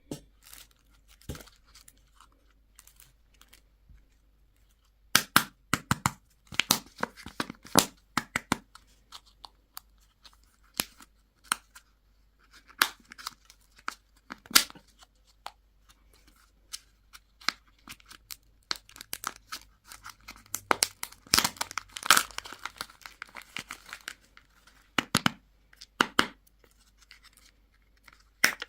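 Plastic candy and toy wrappers being torn open and crinkled by hand: irregular crackles and rips in spurts with short pauses between them.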